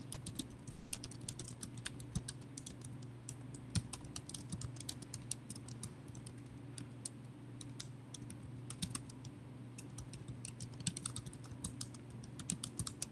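Typing on a computer keyboard: faint, quick, irregular key clicks over a low steady hum.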